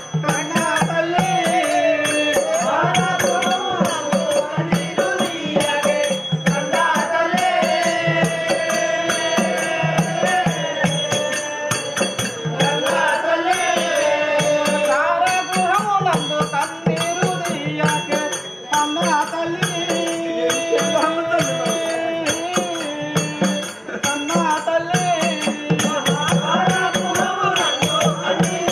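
Live folk-theatre music: a voice sings a slow melody with long, wavering held notes over a steady drone, while hand percussion keeps up a fast, even rhythm.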